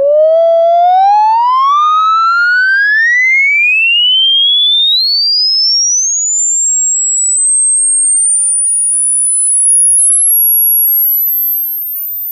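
Pure sine-wave test tone from a frequency generator, sweeping steadily upward from a mid-pitched tone to a thin, very high whistle near the top of human hearing. It climbs quickly at first and more slowly in the second half. This is the upper part of a 20 Hz to 20,000 Hz hearing-test sweep, where the top end becomes hard to hear.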